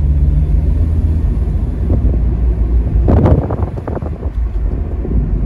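Cabin noise inside a moving BMW E46 318i sedan: a steady low drone of engine and tyres on the road, with a short louder burst about three seconds in.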